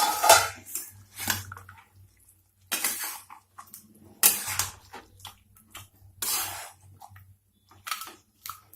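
A spoon scraping and clattering against a cooking pot in a series of irregular strokes, as the slow-cooking mutton is stirred and checked.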